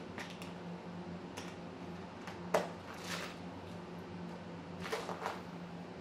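Scattered small clicks and rustles of hands handling computer parts and cables, one sharper click about two and a half seconds in and a short cluster of rustles near the end, over a steady low hum.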